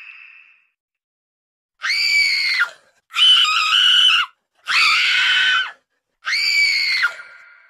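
Female screaming sound effects: a scream fades out at the start, then four loud, high-pitched screams of about a second each follow with short gaps. The last one trails off in an echo.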